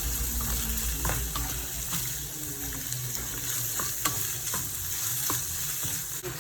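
Japanese rice sizzling as it is sautéed in butter in a pan and stirred, with scattered short taps and scrapes of the stirring utensil over a steady sizzle.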